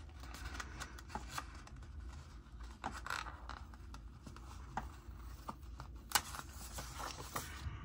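Craft knife scoring and trimming sticker paper, heard as light irregular scratches with small clicks of paper being handled, a sharper click about six seconds in.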